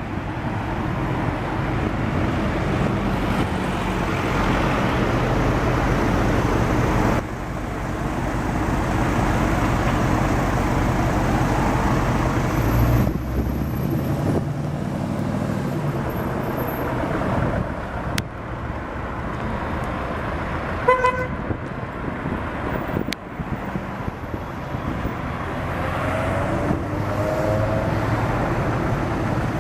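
2014 Ford Mustang GT's 5.0-litre V8 idling with a steady low burble, with a brief louder blip about 13 seconds in.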